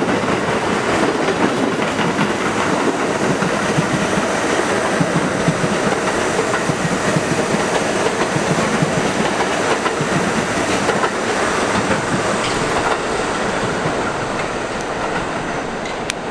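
New York City subway train rolling past at speed, steel wheels clattering over the rail joints. The noise eases off over the last few seconds as the train pulls away, with a few sharp clicks near the end.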